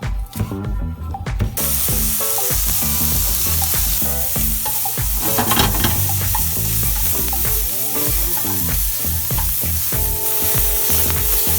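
Food frying in a hot pot, sizzling steadily. The sizzle starts abruptly about a second and a half in, as the ingredients go into the hot fat, with stirring in the pan.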